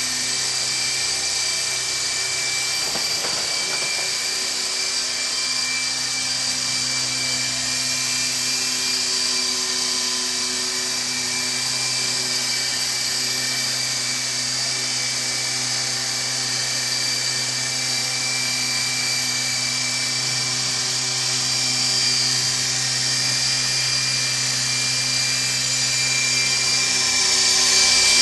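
Small electric radio-controlled helicopter flying, its motor and rotor giving a steady high-pitched whine that gets louder near the end as it comes close.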